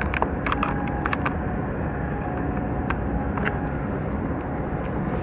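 Steady low engine rumble with water noise, as from a boat under way, with a faint steady whine over it. A few sharp clicks come in the first second and two more about three seconds in.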